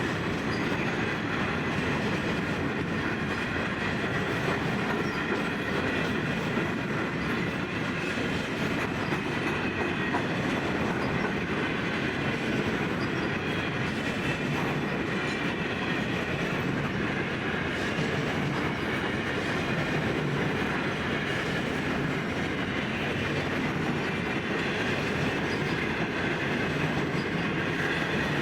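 Loaded grain train's hopper wagons rolling steadily past, with a continuous noise of wheels on rail and faint steady metallic tones from the running gear.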